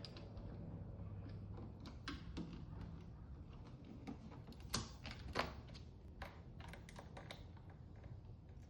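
Irregular small clicks and taps of a hand screwdriver working on a motorcycle's plastic tail light assembly, with a couple of louder clicks about halfway through.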